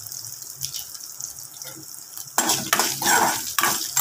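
Onions, curry leaves and dried chillies sizzling in oil in a metal kadai. About two and a half seconds in, a spoon starts stirring and scraping against the pan in several louder strokes.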